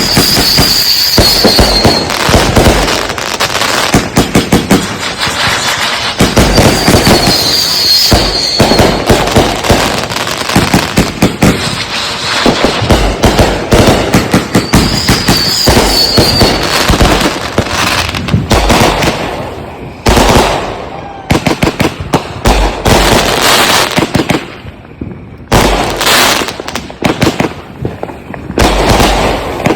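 Consumer aerial fireworks going off in a rapid, dense barrage of launches, bangs and crackle. A short high whistle rises over the bangs three times: at the start, about 7 seconds in and about 15 seconds in. The barrage thins briefly twice in the second half.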